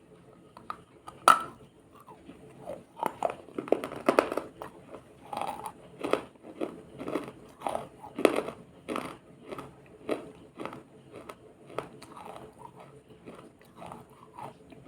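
A person biting and chewing something crunchy that has been soaked in water, close to the microphone. There is one loud, sharp bite about a second in, then a string of crunches roughly every half second as it is chewed.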